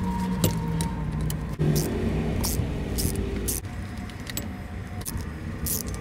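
A ratchet turning a nutsert tool, clicking in short irregular runs with quick zips, as rivet nuts are drawn up and set into the panel to make threaded holes.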